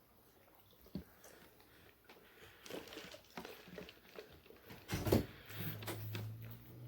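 Close-up eating sounds: chewing and mouth clicks with scattered small smacks, a louder knock about five seconds in, then a low steady hum starts.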